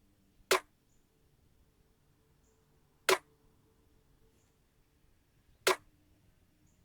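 A single hi-hat sample hit played back in a loop from music software, sounding three times at even intervals of about two and a half seconds.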